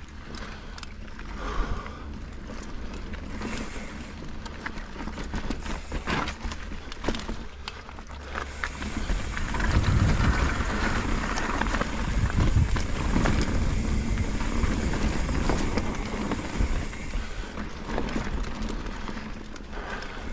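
Mountain bike riding down a dirt trail: the tyres roll over the ground and the bike clatters with frequent knocks and rattles over a steady rumble. The rumble grows louder about halfway through.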